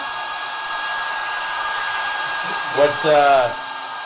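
A steady high whine over a rushing hiss, like a small electric motor running; a short vocal sound breaks in about three seconds in.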